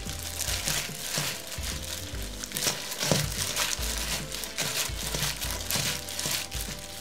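Disposable plastic gloves crinkling as hands toss and squeeze seasoned mung bean sprouts in a stainless steel bowl, with the wet rustle of the sprouts.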